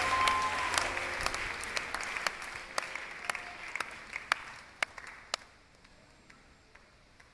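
Congregation applauding, thinning over about five seconds into a few scattered single claps before dying out.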